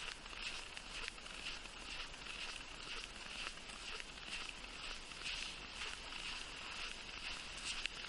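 Footsteps crunching in fresh snow at a steady walking pace, about two steps a second.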